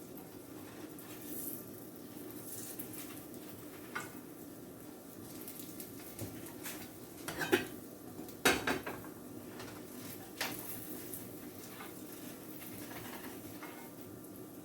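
Kitchen utensils clinking and knocking against pans and dishes while pancakes cook, a few scattered clicks with the sharpest pair about halfway through, over a low steady hum.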